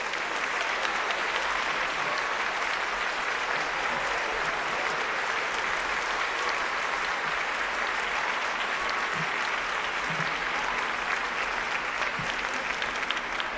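Steady applause from an audience, many hands clapping at once.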